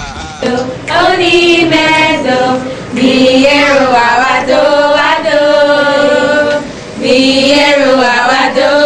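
A group of children singing a thanksgiving song together in three long phrases of held notes.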